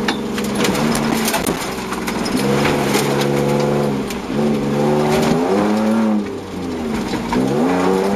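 Toyota Land Cruiser Prado 150 rally car's engine pulling hard, heard from inside the cabin while running on a dirt road. The engine note holds steady, then drops and climbs again twice in the second half. Sharp knocks and rattles from the rough road run through it.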